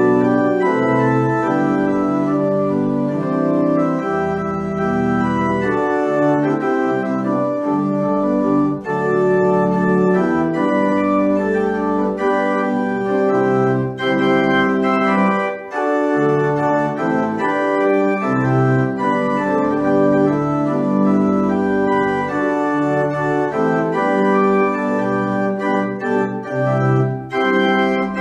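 Church organ playing the postlude: sustained chords that change every second or two over held bass notes.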